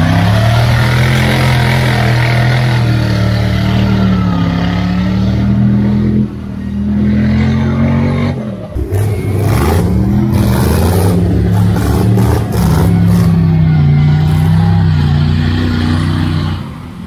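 Lifted mud truck's engine revving hard as it churns through a deep mud hole, the revs climbing at the start, holding high, dipping briefly about six and nine seconds in, then climbing and shifting again.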